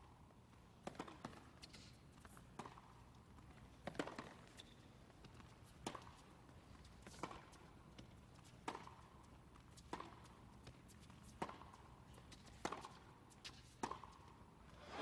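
Tennis rally: racket strings striking the ball in turn, a sharp pop roughly every second and a half, with a hushed crowd between strokes.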